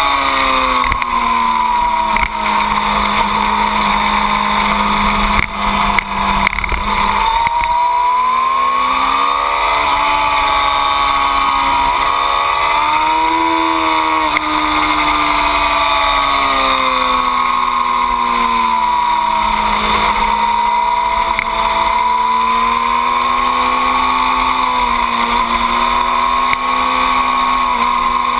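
Yamaha R6 sport bike's inline-four engine running hard around a race track, its pitch rising and falling with throttle and gear changes, with a couple of short dips in level about five to six seconds in. Wind noise rushes over the tail-mounted camera throughout.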